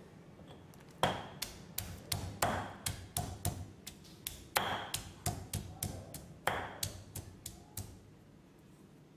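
Stone pestle pounding garlic cloves in a heavy stone mortar: a run of sharp knocks, about three a second, some with a short ring. It starts about a second in and stops near the end.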